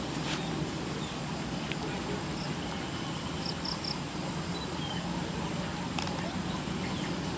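Evening chorus of crickets and other insects over flooded rice paddies: a steady high-pitched trill, with a few short chirps about halfway through, over a low steady rumble.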